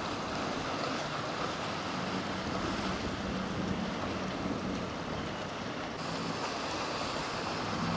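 A powerboat's engines droning low over the rush of waves and wake water, with wind buffeting the microphone.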